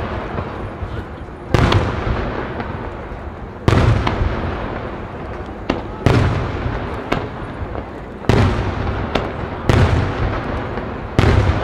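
Aerial firework shells bursting: six sharp bangs, roughly one every two seconds, each followed by a long rolling echo that fades away. Fainter single cracks and pops fall between the bangs.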